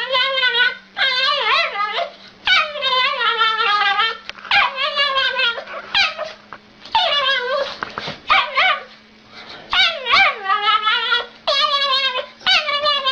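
A dog whining and howling in a long run of wavering, up-and-down cries, about a dozen of them, each lasting up to a second or two with short gaps between. A faint steady hum sits underneath.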